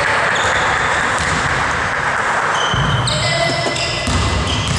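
Basketball bounced on a sports-hall court floor as a player readies a free throw, with short high squeaks.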